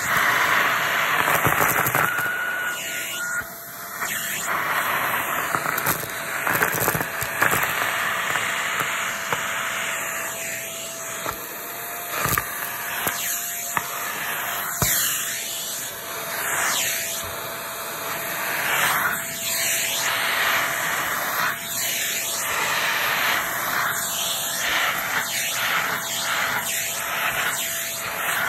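Vacuum cleaner running with a steady whine and a rush of air, crackling and rattling throughout as it sucks up crunchy debris. The rush swells and dips as the vacuum is worked back and forth.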